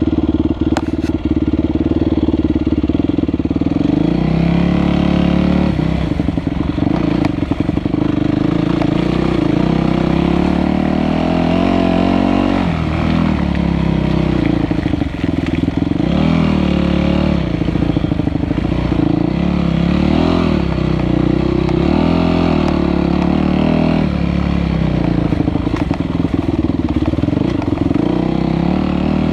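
Motocross dirt bike engine running hard while ridden, the revs climbing and dropping again and again as the rider opens and shuts the throttle.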